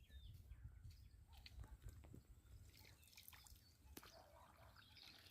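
Near silence: faint outdoor background with a low rumble and a few scattered small clicks.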